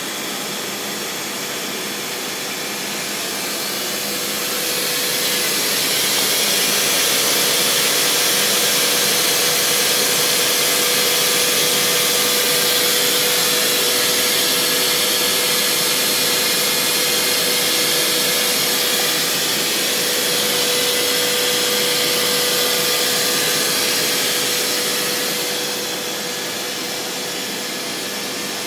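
Trak TMC7 vertical machining center running, a steady whirring hiss with a faint steady tone under it. It swells louder a few seconds in and falls back near the end.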